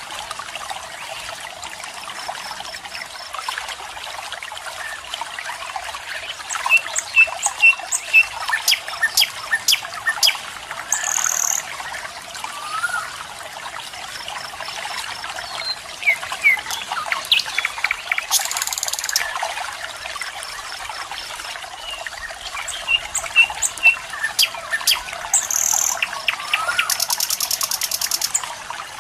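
Steady rush of flowing water, like a stream or small waterfall, with several birds chirping and calling over it in short notes and quick series.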